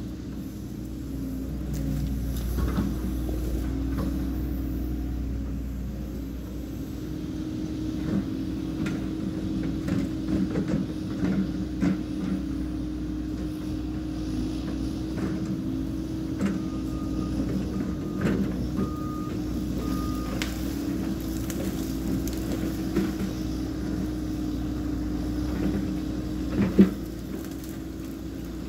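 Cat 314 excavator's diesel engine running steadily while it works in brush, with scattered crackling and snapping of branches. There are four short high beeps near the middle and a single sharp loud crack near the end.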